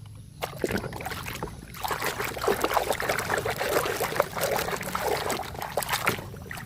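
Water splashing and trickling as a muddy toy vehicle is washed by hand, in irregular small splashes and dribbles that start about half a second in and die down near the end.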